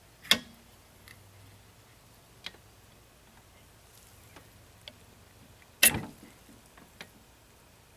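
Scattered sharp clicks and clinks of metal parts as a water pump is fitted over the drive shaft of a Mariner 115 outboard's lower unit. Two clicks are loud, one just after the start and one about six seconds in, with a few faint taps between.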